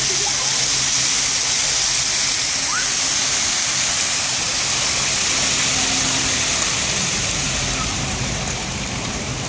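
Splash-pad fountain jets shooting water up and splashing back onto the wet paving: a steady hiss of spraying and falling water. It gets a little softer near the end.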